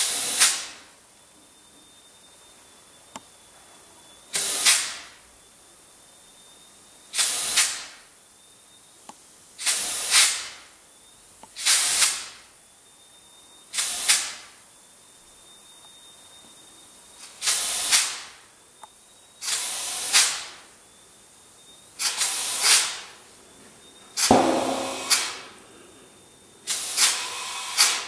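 Compressed air hissing from a hose-fed air gun in short bursts, eleven of them every two to three seconds. A faint steady high whine sounds between the bursts.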